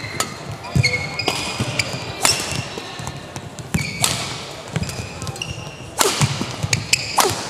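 Badminton rally: rackets striking the shuttlecock, a sharp hit every second or two, with short high squeaks of players' shoes on the court floor between the hits.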